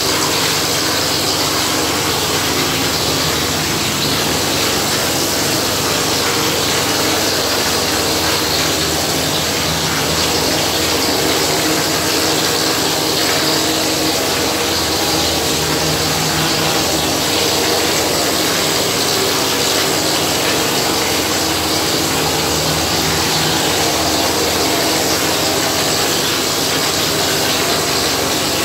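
Plaster spraying machine running steadily: a steady hum from the machine with an even rushing hiss from the spray gun as gypsum plaster is sprayed onto a wall.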